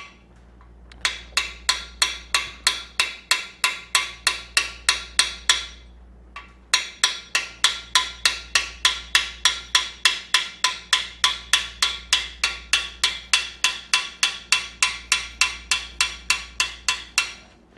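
Ball-peen hammer giving gentle, evenly paced taps on a metal driver tool, driving a bronze lifter bushing into a lifter bore of a cast-iron Chrysler LA small-block engine block. The taps ring metallically, about three or four a second, with a short pause about six seconds in.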